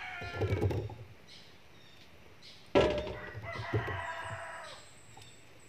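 A rooster crowing: the tail of one call at the start, then a full crow of about two seconds starting about three seconds in. Soft knocks of sweet potatoes being set in a woven basket fall in the first second.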